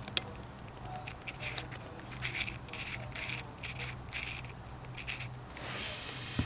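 Small clicks, taps and scratches of a compact digital camera being handled and worked on with small tools, over a low steady hum.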